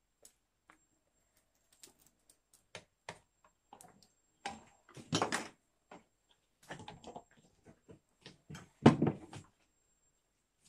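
Irregular clicks, knocks and rustles of handling, with the loudest knock about nine seconds in: kitchen items and the handheld camera being moved about and rubbing against clothing.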